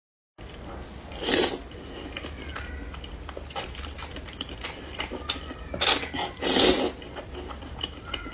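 Close-up slurping and chewing of saucy noodles, with loud slurps about a second in and again near six to seven seconds, and small wet mouth clicks between them.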